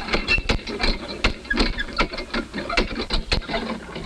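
Old hand water pump being worked over and over, its handle and rod clanking and squeaking in quick, irregular strokes. The pump has stood unused for four years and brings up no water.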